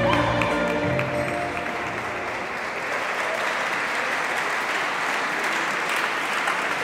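Viennese waltz music fading out over the first couple of seconds, then audience applause.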